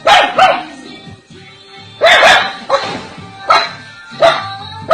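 Dog barking repeatedly in short, sharp barks: two at the start, a pause of over a second, then a run of barks about every three-quarters of a second. Background music plays underneath.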